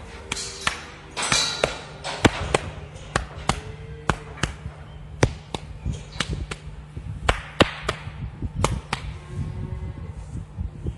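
Fingers flicking and tapping the left flank of a cow, sharp irregular taps about two a second that stop about nine seconds in. This is a ping test, percussion while listening with a stethoscope, and the flank gives no ping: the sign that the displaced abomasum is back in its normal position.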